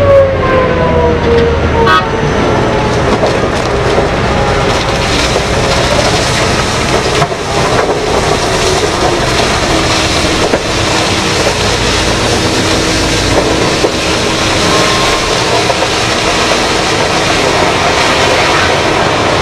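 BelAZ-75710 ultra-class mining dump truck tipping its load: its engines run under load while the rock pours out of the raised body as a loud, steady rushing noise. A tone falls in pitch over the first couple of seconds.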